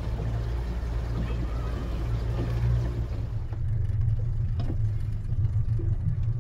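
Outboard motor running at low speed on a pontoon boat, a steady low hum, with a couple of short knocks about three and a half and four and a half seconds in.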